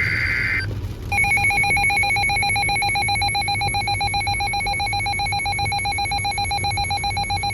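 Emergency Alert System alert tones: the last raspy data burst of the SAME header ends, and about a second in the two-tone EAS attention signal starts and holds steady with a fast, ringing flutter. It marks the start of an incoming severe thunderstorm warning.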